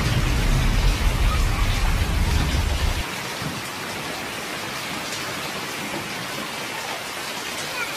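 Steady rain falling on a paved street and foliage. A low rumble sits under it for about the first three seconds and then cuts off abruptly.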